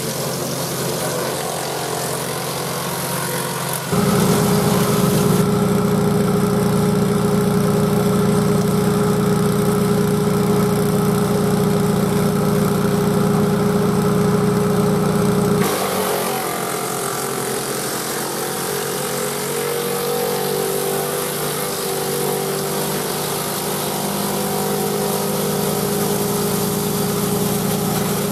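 Grillo G131 walk-behind tractor's 18 hp Vanguard V-twin engine running steadily at work speed, driving a Caravaggi BIO 150 chipper shredder. From about four seconds in, the sound turns suddenly louder and deeper for about twelve seconds, then drops back to the earlier level.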